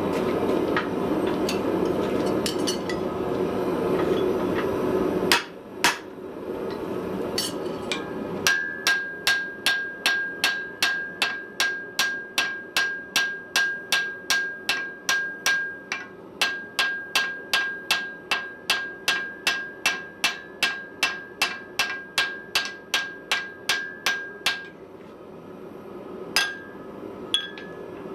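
Hand hammer forging a glowing steel hammer head on an anvil: a steady run of about forty blows, roughly two and a half a second, each ringing with a clear high tone, then two single blows near the end. A steady rushing noise fills the first five seconds and stops suddenly.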